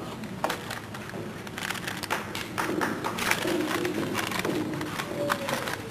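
Scattered irregular taps and clicks as a school concert band gets ready to play, from instruments, music stands and sheet music being handled, under a faint murmur.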